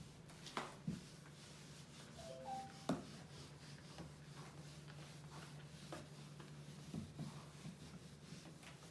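Felt whiteboard duster rubbing across a whiteboard, faint, with a few soft knocks, the loudest about three seconds in, over a steady low hum.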